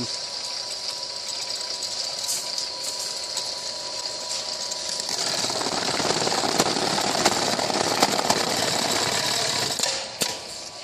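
Automatic bag closing line with crepe tape infeeder and DS-9C bag-closing sewing head running: a steady mechanical hiss and hum. About halfway in it grows louder and busier as the sewing head stitches the crepe-taped top of the sack. Near the end the sewing stops and a single sharp click follows.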